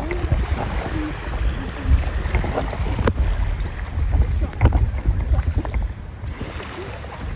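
Wind rumbling on the microphone, with shallow seawater sloshing and splashing around bare feet wading through it.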